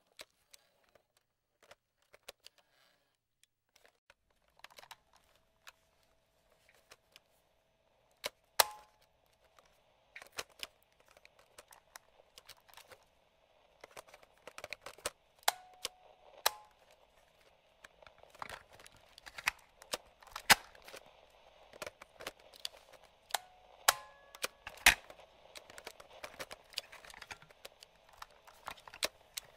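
Mechanical clicks and clacks of a vintage radio's slide switch and an old portable cassette recorder's keys and levers being pressed, sparse at first and then coming thick and fast, with the loudest click about a third of the way in. Under them runs a faint radio static hiss with brief whistle tones, growing after about halfway.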